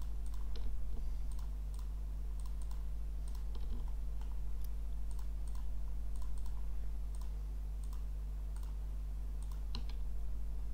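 Computer mouse buttons clicking irregularly, with a Shift key held, as faces are selected one after another in 3D modelling software. A steady low hum runs underneath.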